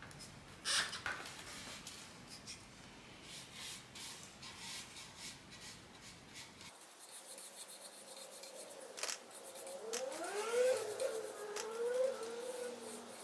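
Bristles of a broad flat paintbrush stroking and rubbing across a wooden picture frame, with a few small clicks. From about ten seconds in, a wavering tone rises and then wobbles up and down over the brushing.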